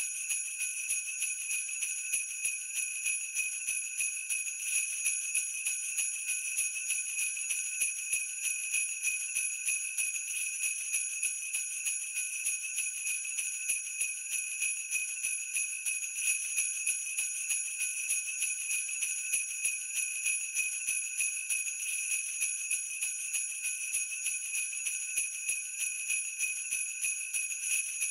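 Jingle bells shaken continuously: a steady, high jingling made of a dense stream of small strikes.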